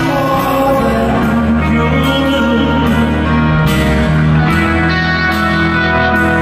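Live rock band playing a slow song, guitars prominent, over a steady beat.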